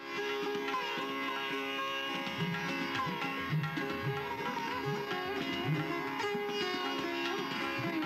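Instrumental music in an Indian classical style: a plucked string melody with gliding notes, sitar-like, over tabla-like drum strokes, at a steady level.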